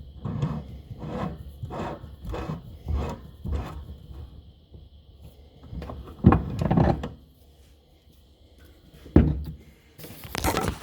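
Hand tool work on a workbench: a run of rhythmic rubbing or ratcheting strokes, about one every half second, for the first few seconds. Then several louder knocks and clunks of parts being handled.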